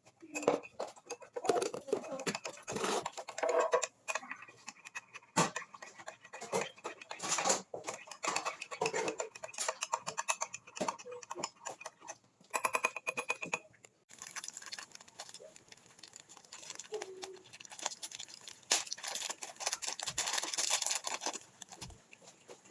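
Kitchen work noises: repeated clicks, knocks and scraping of utensils and dishes, with voices faintly in the background at times.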